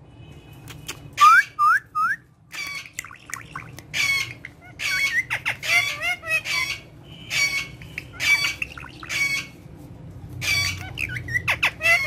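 Indian ringneck parakeet calling in a busy string of short, harsh squawks mixed with quick rising whistles, with brief pauses about two seconds in and again near ten seconds.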